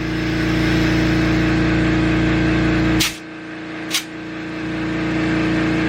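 Compressed air being fed into a motorcycle tyre through an inflator to seat the bead, a steady rush of air over a humming tone. It stops with a click about three seconds in, then starts again with a click about a second later and builds back up.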